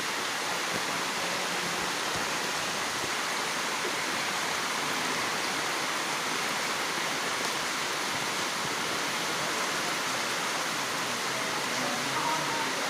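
Steady heavy rain falling, a constant even hiss with no let-up.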